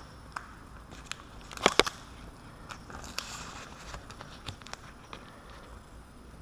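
Adhesive tape being handled and pressed around a door latch: scattered crackling and sharp clicks, the loudest a close pair about one and a half seconds in.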